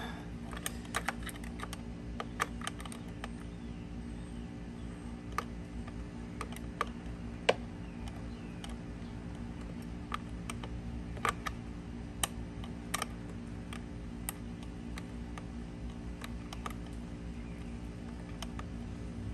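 Irregular light metallic clicks and taps of a small hand wrench working a nut onto a starter terminal, some single and some in quick little runs, over a steady low hum.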